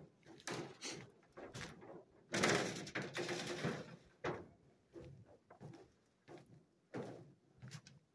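Footsteps on the perforated metal grating deck of a suspension footbridge: dull thuds about two a second, with a longer rush of noise about two and a half seconds in.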